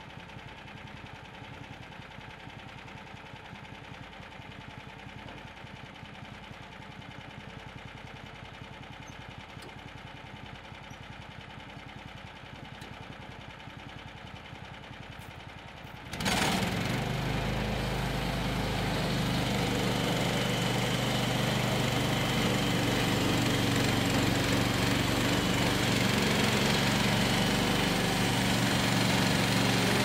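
The sawmill's 13.5 hp Briggs & Stratton engine idling with its centrifugal clutch disengaged, then about 16 seconds in it is abruptly throttled up, engaging the clutch to drive the band blade, and it runs loud and steady at high speed, growing slightly louder toward the end.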